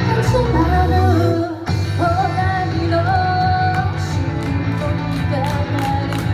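Solo voice singing a pop-rock song over band accompaniment with guitar; the music dips briefly just before two seconds in, and cymbal or hi-hat strokes tick on the beat from about four seconds in.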